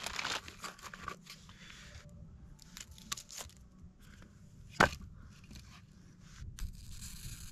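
Paper crinkling and tearing, then split firewood being handled and stacked in a fire ring, with one sharp knock of wood on wood about five seconds in. A steady hiss starts near the end.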